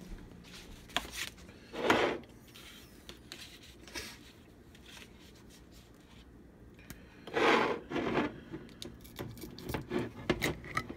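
Rubbing and scraping of kitchen handling: two short scrapes, about two seconds in and again past the middle. Near the end come a few small clicks as the screw lid of a glass mustard jar is twisted open.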